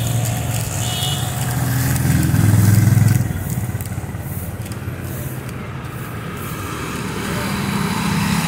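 Road traffic passing, with a motorcycle engine running loudest about two to three seconds in, then fading before more traffic builds up again near the end.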